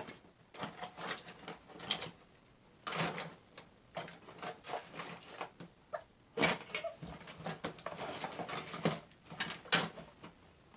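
Rummaging through a container of plastic toys: a run of short, irregular clatters and rustles, with a few brief squeaky sounds mixed in.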